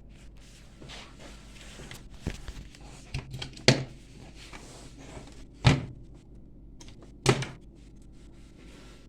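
A handful of sharp knocks and clunks, the three loudest about two seconds apart, over a faint steady low hum.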